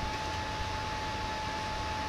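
Steady machine noise: an even hiss, like a running fan or blower, with a faint steady whine.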